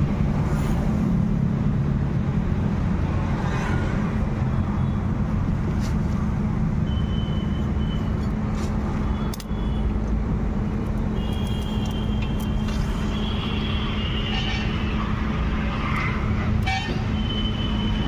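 Steady rumble of road traffic and engines, with several brief high-pitched toots and a few light clicks over it.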